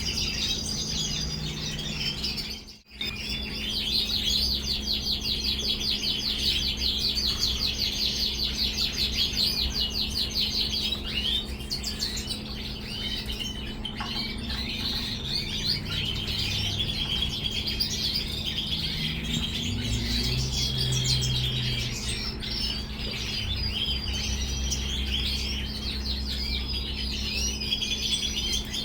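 European goldfinches and red siskins singing in a cage: a continuous run of fast twittering chirps and trills, with a brief break about three seconds in. A steady low hum runs underneath.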